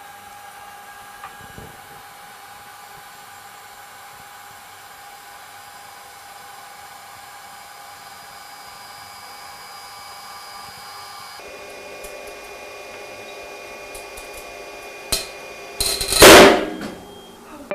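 Materials testing machine pulling seat-belt webbing in tension, its drive giving a steady whine. Near the end there is a sharp crack, then a loud, brief snap as the webbing fails at the break of the test.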